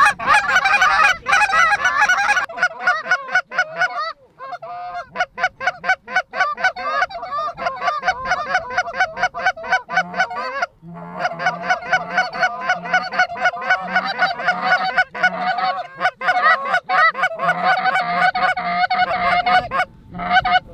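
Goose honking and clucking: rapid, overlapping calls coming several a second, with brief breaks about four and ten seconds in.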